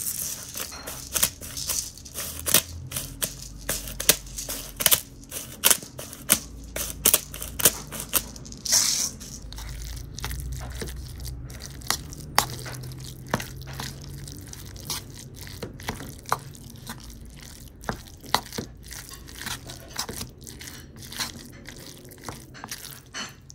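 A metal spoon stirring a thick chickpea-and-vegan-mayonnaise tampico mixture in a bowl, making irregular clicks and scrapes, a few a second.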